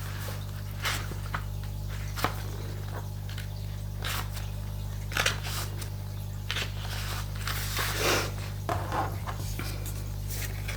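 Oracle cards being handled: scattered light taps and rustles, several times, over a steady low hum.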